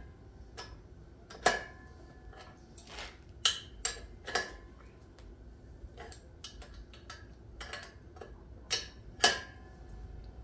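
Adjustable wrench clinking against nuts and steel brackets as bolts are tightened on a square-tube steel frame: a run of irregular sharp metallic clicks, the loudest about one and a half seconds in and again about nine seconds in.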